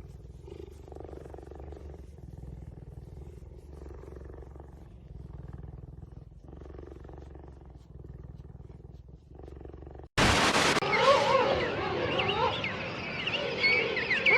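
Faint low rumbling animal sound for about ten seconds, then after a sudden loud burst, loud wavering animal cries that glide up and down in pitch.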